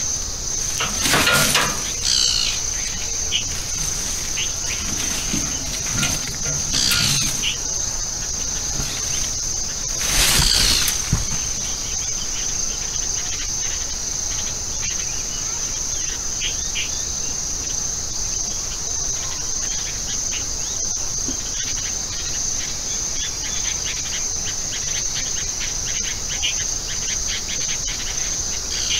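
Insects calling in one steady high-pitched drone, with a few short bird chirps early on. Two brief louder noises stand out, about a second in and about ten seconds in.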